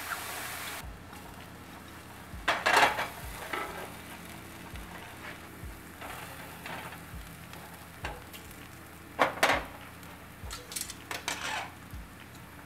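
Sliced mushrooms sizzling in a nonstick frying pan, the hiss louder for the first second. A silicone spatula scrapes and stirs them in short clattering bursts, loudest about two and a half seconds in and again about nine seconds in.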